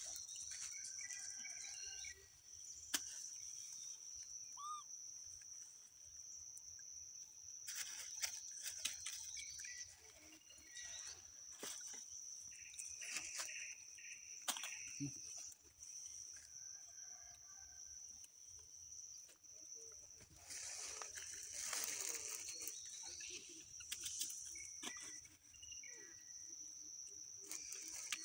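Steady high-pitched insect drone, with scattered small clicks and rustles from macaques picking at food and moving on stone and dry leaves.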